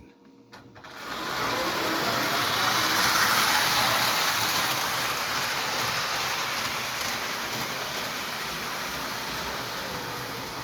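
Lionel 752W City of Portland streamliner toy train running on its track: the electric motor and wheels start up about a second in and settle into a steady running hum that eases off slightly toward the end.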